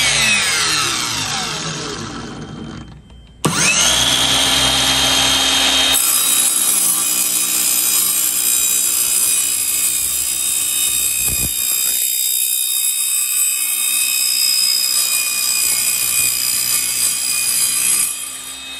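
Ryobi 18V cordless 184 mm mitre saw with a carbide-tipped metal-cutting blade. The motor is winding down, then starts again with a rising whine about three and a half seconds in. From about six seconds the blade cuts through square steel tube with a loud, steady, high ringing screech that ends near the close.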